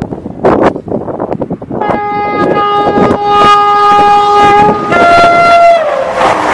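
ScotRail High Speed Train's two-tone horn sounding as it approaches at speed. A long steady low note gives way to a higher note that drops in pitch as the power car passes, followed by the rush of the train going by. Wind gusts hit the microphone before the horn starts.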